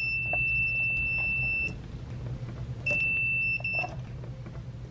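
Multimeter continuity beeper sounding a steady high tone across the Razor E100 scooter's brake switch wires. It cuts off about 1.7 s in as the brake lever is pulled, the sign that the brake switch opens the circuit. It sounds again for about a second near the end, then stops.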